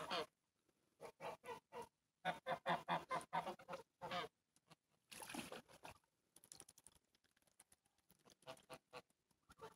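White domestic geese cackling in runs of short, quick honks. The busiest run comes between about two and four seconds in; after it the calls are fewer and fainter.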